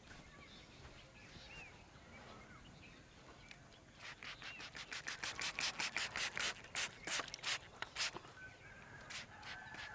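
Hands working briskly over a head and hair in a head massage: a run of quick, even, rhythmic strokes, about four or five a second. They start about four seconds in, pause briefly, and start again near the end. Faint bird chirps can be heard before the strokes begin.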